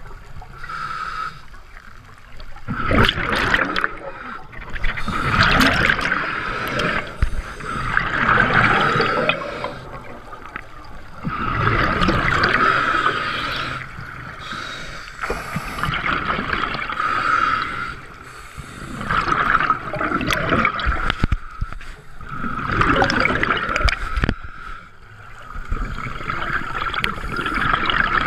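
Scuba diver breathing through a regulator underwater: exhaled air bubbles out in gurgling bursts about every three to four seconds, with quieter gaps between breaths.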